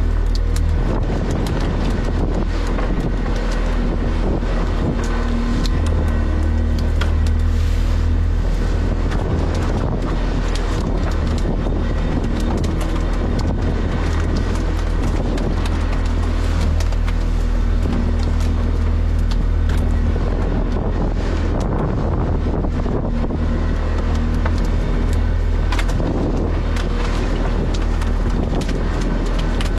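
A fishing boat's engine running steadily, with wind on the microphone and scattered knocks and clicks.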